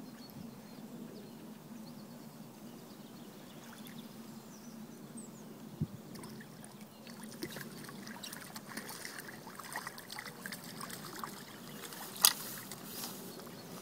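Water splashing and sloshing in the shallow margin as a hooked carp thrashes at the surface and is drawn over the landing net. The splashing picks up about halfway, with one sharp loud splash near the end.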